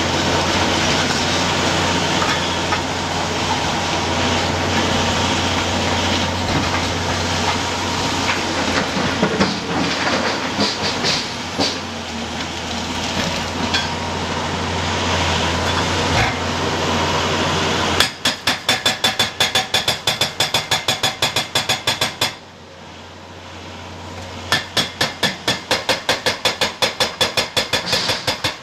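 Cat H180Es hydraulic hammer on a Cat 352F XE excavator breaking rock. At first it is a dense, continuous clatter over the steady hum of the excavator's engine. About two-thirds of the way in it turns into distinct hammer blows at about five a second, which stop for a couple of seconds and then start again near the end.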